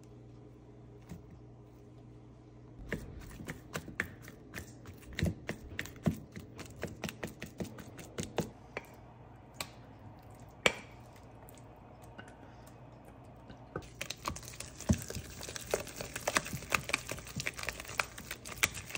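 A silicone spatula clicking and scraping against a bowl as ripe bananas are mashed, changing about fourteen seconds in to a denser, busier scraping with many small clicks as the mash is stirred into thick batter in a stainless steel bowl. A low steady hum underlies the first few seconds.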